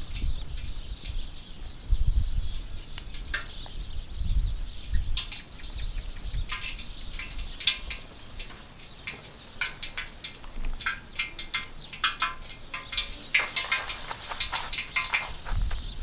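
Hands handling fish in flour and coarse rice crumbs on metal trays: scattered small clicks and crackles, thickening into a dense rustle of crumbs near the end.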